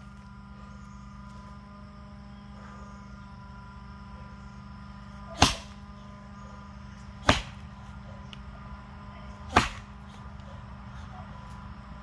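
Axe blows striking a box elder log, three sharp strikes about two seconds apart.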